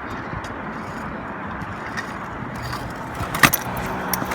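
Steady rushing background noise with one sharp clack of a kick scooter striking the ground about three and a half seconds in, plus a few faint clicks.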